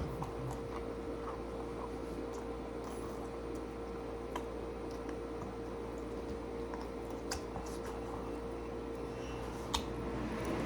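Close-up chewing of a spicy shrimp sub, with a few sharp mouth clicks, over a steady background hum.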